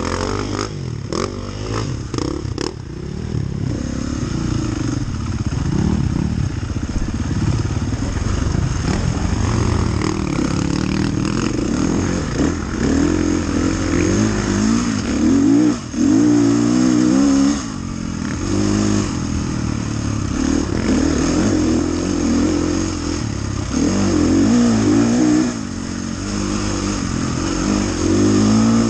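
Dirt bike engine heard up close from on board, revving up and down over and over as it is ridden hard through mud, with short throttle-offs between the pulls. A few knocks near the start.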